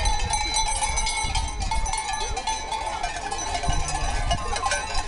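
A flock of sheep on the move: many sheep bells clanking and ringing together, with scattered bleats.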